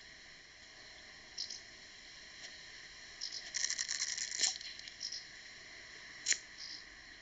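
Quiet cartoon sound effects over a faint steady background: a quick flurry of high clicks about halfway through and one sharp click near the end.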